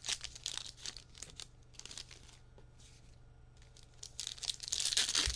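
Plastic wrapping on trading-card packs crinkling and tearing as they are opened by hand. The crinkling dies down for a couple of seconds in the middle and picks up again near the end, over a faint steady hum.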